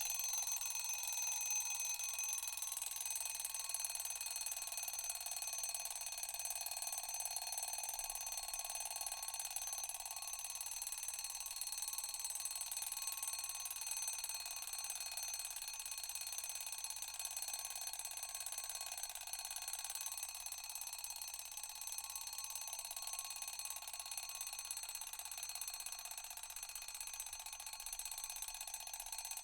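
Mechanical alarm clock's bell ringing without a break, a steady high metallic ring.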